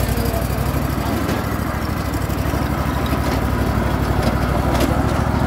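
Hustler ride-on lawn mower's engine running steadily at an even, low speed.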